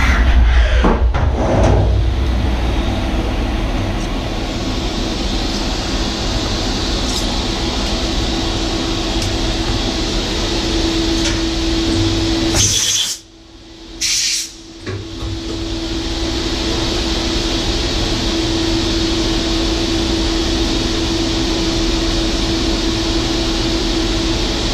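A CNC mill standing idle after a cut: a steady machine hum and hiss with a low steady tone. There are a few knocks in the first couple of seconds, and the sound cuts out twice briefly about halfway through.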